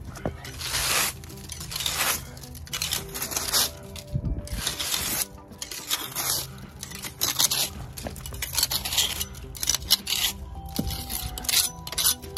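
A hand tool scraping along a crack in concrete, raking out grit and dead leaves in repeated irregular strokes, each under a second long: the crack is being cleaned out before it is filled.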